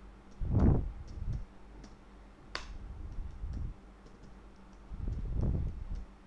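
Computer keyboard typing: a run of light key clicks, with one sharper click about two and a half seconds in. A few louder low puffs on the microphone come through as well, the loudest about half a second in.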